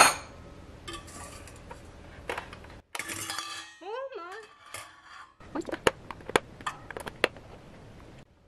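Metal hand-mixer beaters clinking against a stainless steel bowl and clicking into the mixer's sockets: a string of sharp metallic clicks and clinks, thickest in the second half.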